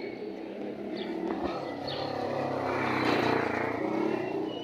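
A motor vehicle driving past; its engine noise swells to a peak about three seconds in, then fades away.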